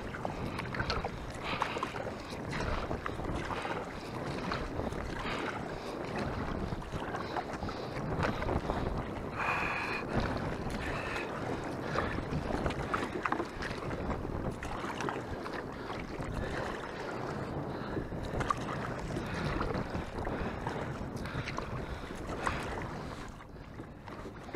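Water splashing and sloshing as a Perception Pescador Pro 10.0 kayak is paddled, with wind buffeting the microphone.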